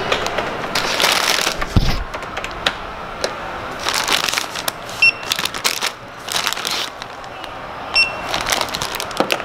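Plastic bags of caramel popcorn crinkling and crackling as they are handled at a shop checkout, with a dull thump near two seconds in. Two short barcode-scanner beeps sound about five and eight seconds in.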